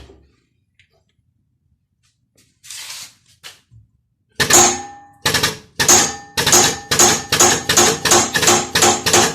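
Repeated hard blows of metal on metal with a ringing clang, driving the old rubber bushing out of a Range Rover L405 front control arm. They start about four and a half seconds in, after a short rustle, and settle into a steady beat of about three strikes a second.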